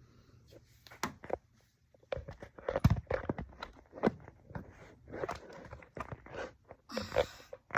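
A run of irregular knocks, clicks and rustles of small objects being handled, with the loudest knock about three seconds in.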